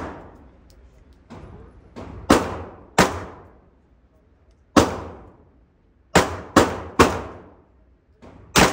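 Semi-automatic gunshots from a KRISS Vector carbine fired one at a time: about seven loud, sharp cracks, irregularly spaced from about half a second to two seconds apart, each followed by a long echoing decay in the indoor range. Fainter reports sound in between.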